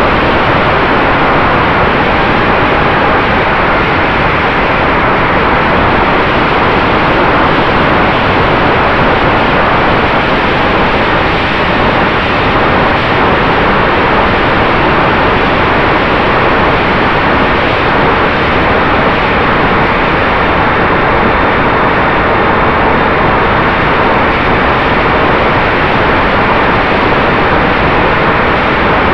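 Wind rushing over the onboard camera of a Ritewing Mini Drak FPV flying wing in flight, a loud steady rush with the electric motor and propeller humming faintly underneath.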